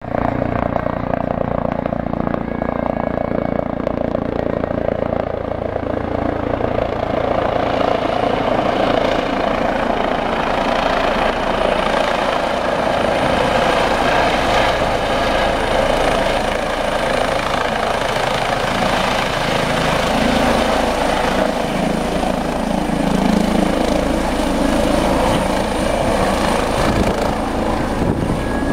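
Rescue helicopter flying in and coming down to land, its rotor and turbine running loud and steady, the sound growing brighter and fuller from about six seconds in as it nears.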